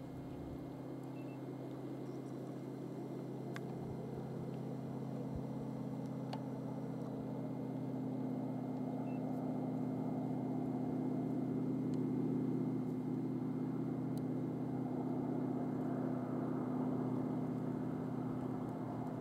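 Steady low hum of an idling engine, several even tones held throughout, swelling slightly midway.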